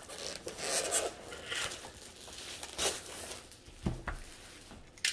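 Clear plastic shrink-wrap rustling and crinkling in irregular bursts as it is pulled off a cardboard kit box, then a single dull thump just before four seconds in.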